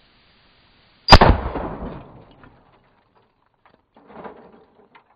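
A single shot from a Cimarron 1886 lever-action rifle in .45-70: a sharp, loud crack about a second in that dies away over about a second. A few faint knocks follow near the end.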